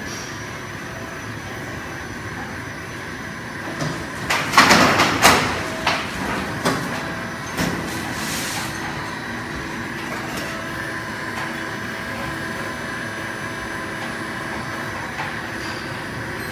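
Factory machinery running with a steady hum. A run of loud metal bangs and clatter comes about four to six seconds in, with a few more knocks after it and a short hiss near eight seconds.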